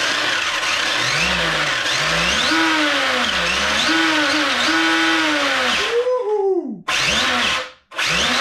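Brushless motor and drivetrain of an Arrma Limitless RC car spinning its saw-blade wheels off the ground. A whine rises and falls with the throttle over a loud rushing noise, cuts off about six seconds in, then comes back in two short bursts.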